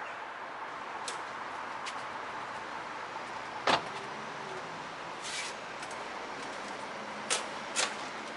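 Parcel-locker compartment door unlocking with one sharp clack about halfway through, then two lighter knocks near the end as the open compartment is handled, over a steady background hiss.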